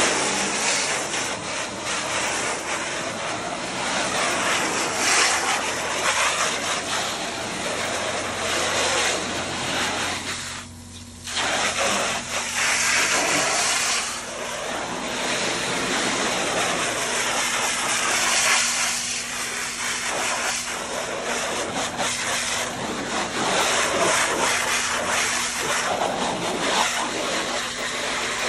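Garden hose with a pressure nozzle spraying water onto a screen-printing screen's mesh, washing the ink out: a steady hiss of spray that stops for about a second roughly ten seconds in, then carries on.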